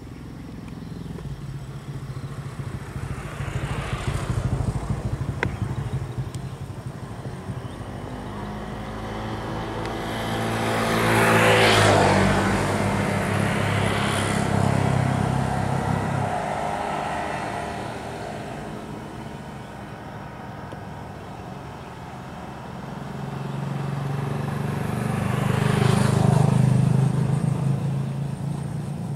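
Engines of motor vehicles going past, over a steady low engine hum. One passes close about 12 seconds in and another near the end, each rising in pitch and then falling as it goes by; a fainter swell comes about 4 seconds in.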